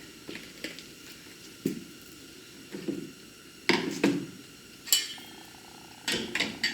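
Scattered light metallic clinks and knocks, about seven or eight at uneven intervals, from tools and hardware being handled while working a wiring plug loose under a pickup truck.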